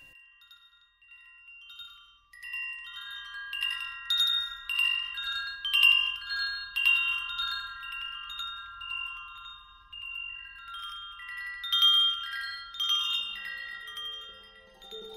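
Intro music of ringing chimes: many high, overlapping tones struck in an irregular cascade, faint at first and fuller from about two seconds in. Lower notes join near the end.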